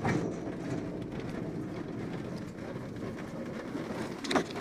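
Glider rolling out on a grass airstrip after touchdown: a steady rumble and rattle of the wheel and airframe over the rough ground, with a jolt right at the start and a few sharper knocks near the end.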